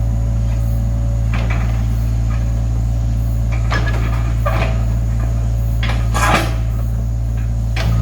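A steady low engine drone with a series of scattered knocks and clunks over it, the loudest about six seconds in.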